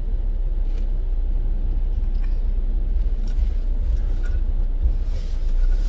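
Car driving, heard from inside the cabin as a steady low rumble of road and engine noise, with a few faint ticks.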